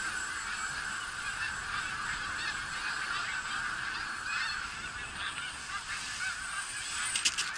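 A flock of geese honking overhead, many overlapping calls, with a few sharp clicks near the end.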